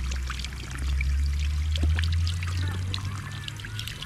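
Water from a park drinking fountain running as someone drinks from it again.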